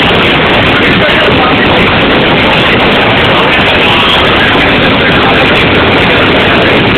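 Nilgiri Mountain Railway passenger train running, heard from on board as a loud, steady rumbling noise.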